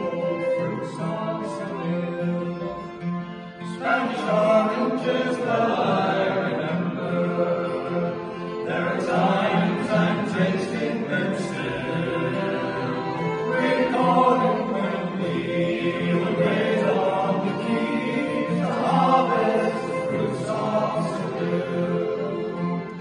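A group of men singing together in harmony, accompanied by acoustic guitar and fiddle; the voices swell with each new line, about every five seconds.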